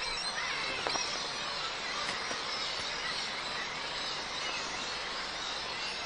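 Steady forest ambience: an even background hiss with faint bird chirps, one a little louder about a second in.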